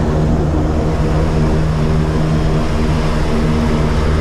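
Propeller engine of a small jump aircraft running steadily on the ground, heard from inside the cabin through the open door, with an even, unchanging pitch.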